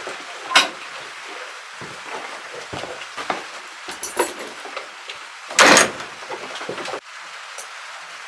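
Scattered knocks and clatter, with a short, loud scraping rattle about five and a half seconds in.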